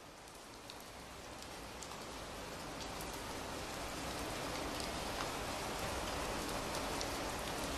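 Steady rain falling, with scattered individual drops ticking, fading in and growing gradually louder.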